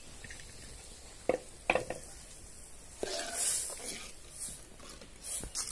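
Metal ladle stirring thin dal sambar in an aluminium pot: two ringing clinks of metal on metal about a second and a half in, then a scraping swish of stirring from about three seconds, with a few more light clinks near the end.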